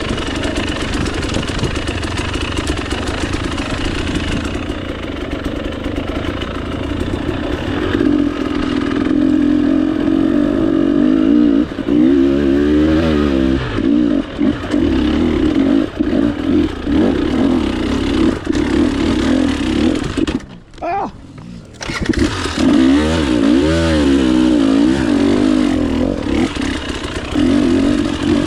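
Two-stroke dirt bike engine running under way, its pitch rising and falling as the throttle is worked. The sound drops away almost completely for about a second roughly two-thirds through, then picks straight back up.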